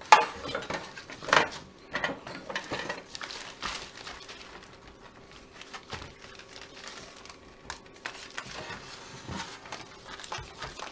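Paper rubbing and scraping around the inside of an aluminium baking pan as it is greased with butter. There are sharp knocks of the metal pan, the loudest right at the start and another about a second and a half in, then lighter rubbing strokes.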